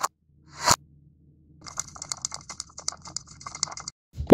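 A sharp tap about two-thirds of a second in, then a couple of seconds of crackly rustling made of many small ticks: fingers rubbing and raking through a bed of small polystyrene foam beads. A sharp click at the very end.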